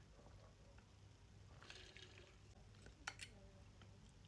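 Faint wet, squishy mouth sounds of eating soft ripe mango, with a cluster of smacking about two seconds in and two sharp clicks a second later.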